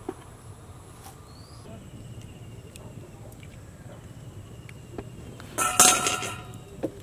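A short loud metallic clatter with ringing, about six seconds in, from a metal kadhai as cooking oil is poured into it. A faint high insect buzz and a few light clicks sit behind it.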